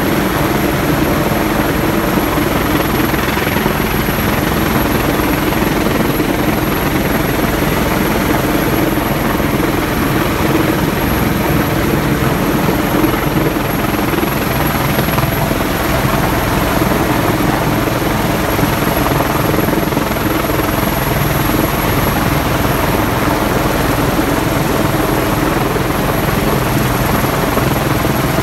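Rescue helicopter hovering low overhead: a loud, steady rotor and engine drone that does not change.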